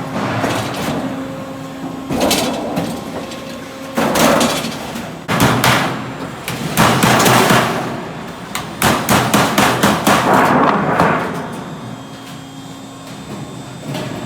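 Sheet-metal duct coil line forming a blank into a full-wrap duct section: repeated bursts of metallic clatter and banging, with rapid clicking in places, easing off near the end.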